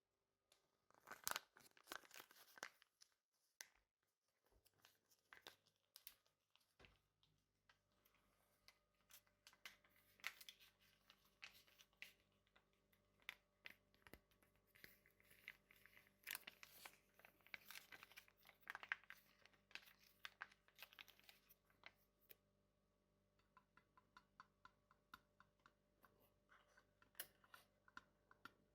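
Faint tearing and crinkling of a handled material in irregular bursts. Near the end there is a fast run of small clicks.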